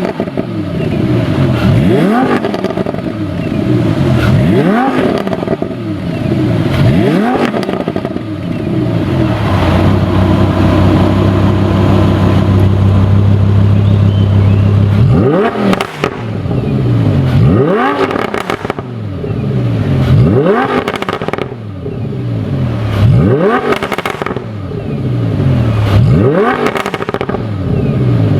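Lamborghini Huracan LP610-4's naturally aspirated V10 through an IPE exhaust, blipped again and again in quick rising-and-falling revs about every two and a half seconds. Midway it is held at a steady high rev for about five seconds, then dropped back to repeated blips with sharp crackles as the revs fall.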